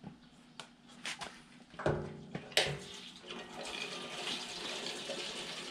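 Fuel being poured from a plastic gas can through a spout into an outboard motor's fuel tank, a steady splashing pour from about three seconds in. Before it come a few knocks and clunks as the cans are handled.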